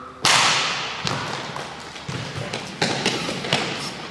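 Plastic wiffle bat hitting the pitched wiffle ball with a loud crack about a quarter second in, ringing on in the echo of a large gym hall. A few lighter thuds and taps follow.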